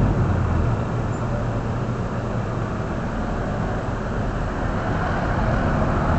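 Steady road-vehicle rumble and traffic noise.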